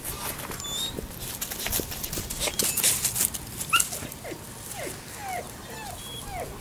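Labrador retriever puppy whimpering: a run of short, falling whines about two a second, starting about four seconds in, after scattered rustling and scuffling.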